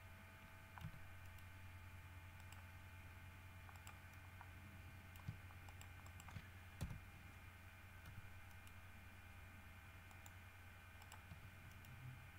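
Faint computer keyboard and mouse clicks, about five scattered over several seconds, over a steady low hum.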